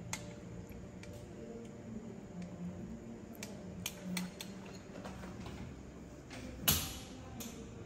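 Scattered light clicks and taps of a small pet monkey handling a fork at the table and clambering from a chair onto a kitchen counter, with one louder knock a little before the end.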